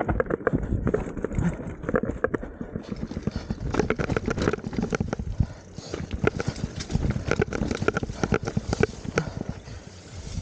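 Downhill mountain bike rattling over a rutted dirt trail: rapid, irregular knocks and clatter from the bike and tyres hitting ruts, with a low rumble underneath.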